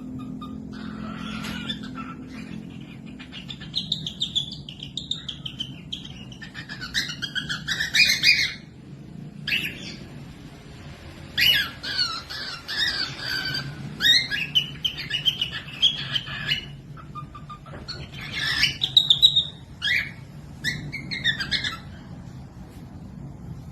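Small pet parrots chirping, squawking and warbling in gliding phrases, in several bouts with short pauses between, over a steady low hum.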